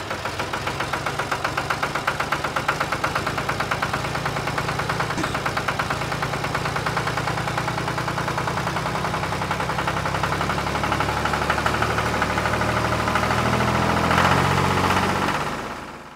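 Tractor engine chugging with a rapid, even knock, fading out near the end.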